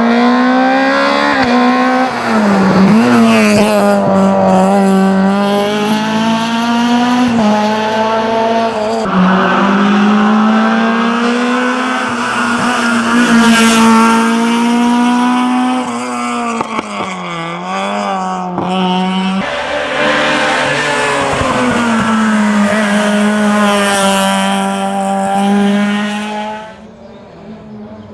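Honda Civic VTi race car's four-cylinder engine at full throttle, its pitch repeatedly climbing and then dropping sharply with gear changes and braking for bends. Loud throughout, falling away steeply near the end.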